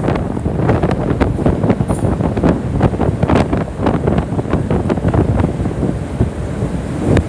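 Wind buffeting the microphone in rapid, irregular gusts, over a steady low rumble.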